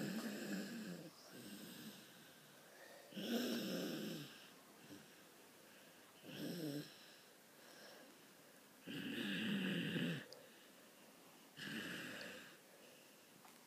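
Domestic cat snoring: five snores about three seconds apart, each lasting up to a second or so, with fainter breaths between some of them.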